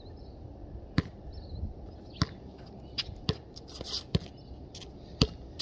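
Basketball bouncing on concrete pavement: about six sharp thuds at uneven spacing, with a brief sneaker scuff near the middle.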